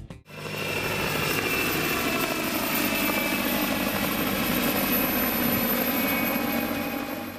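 Mi-2MSB helicopter flying low overhead, its turboshaft engines and rotor making a steady whining rush. It swells up just after the start and falls away near the end.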